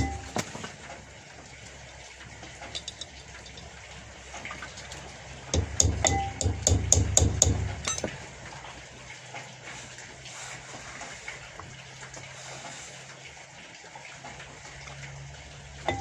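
A hammer tapping a small wrench onto the head of a brake drum guide bolt: a quick run of about eight ringing metal taps starting about five and a half seconds in.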